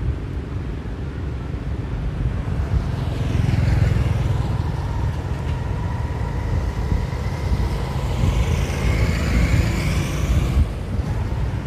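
Road traffic driving past: a few motor vehicles, tuk-tuks and a van among them, go by over a steady low rumble. The sound builds from about three seconds in and drops away shortly before the end.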